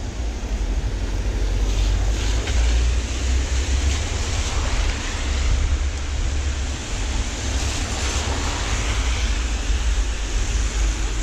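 Wind rumbling on a GoPro's microphone over a steady hiss of rain on a street.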